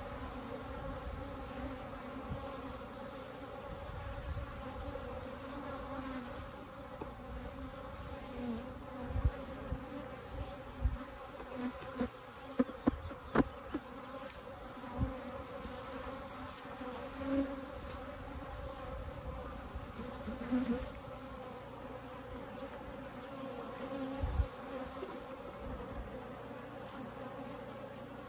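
Colony of Africanized honeybees buzzing steadily. A run of sharp knocks and clicks comes in the middle, with one more near the end.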